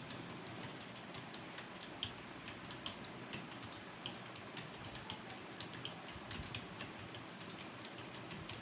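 Fast typing on a computer keyboard: faint, irregular key clicks, several a second, over a steady hiss.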